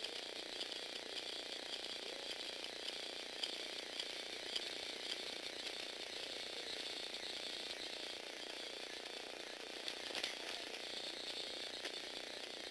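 Small electric motor and plastic gears of a Lego Technic six-legged walking robot whirring steadily, with a light ticking from the mechanism about twice a second.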